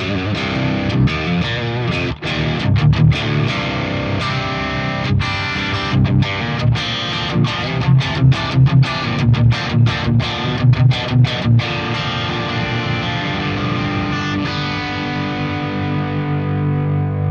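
Electric guitar played through the Peavey Invective amplifier's clean channel into a 2x12 cabinet loaded with a Celestion V30 and an H75 Creamback. Quick picked notes and chords run through the middle, and a final chord is left ringing and slowly fading over the last few seconds.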